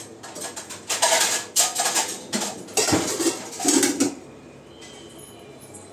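Metal utensil scraping and knocking against a steel cooking pot in a run of harsh scrapes, stopping about four seconds in.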